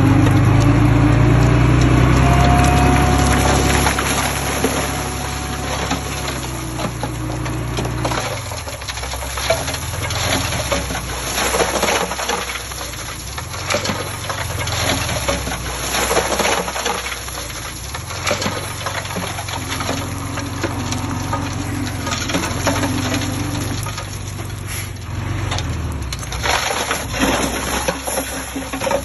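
Soil and stones pouring and clattering, with a heavy diesel engine running, loud for the first few seconds and then lower.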